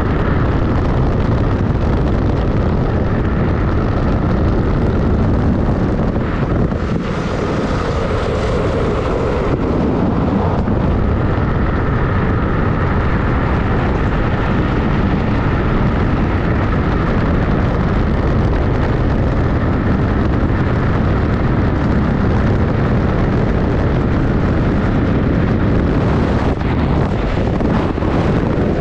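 Steady, loud rush of wind buffeting the camera microphone, with the drift trike's wheels rumbling on the asphalt, as the unpowered trike coasts fast downhill.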